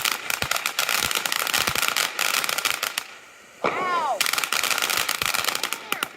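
Fireworks going off in a dense, rapid string of crackling pops, like machine-gun fire. About halfway the popping pauses, a short falling squeal sounds, and then the crackling resumes.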